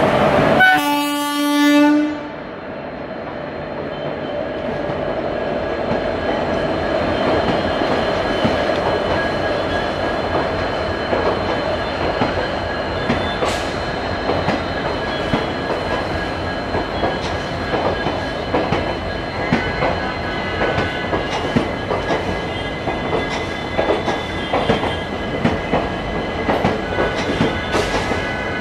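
Passenger coaches of a departing express train rolling past on the rails, the wheels clicking over rail joints, the clicks growing more distinct and frequent from about halfway. A single locomotive horn blast of about a second and a half sounds about a second in.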